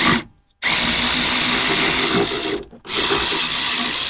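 Cordless battery ratchet spinning out the bottom 13mm brake caliper bolt. It gives a brief blip, then runs in two bursts of about two seconds each with a short pause between.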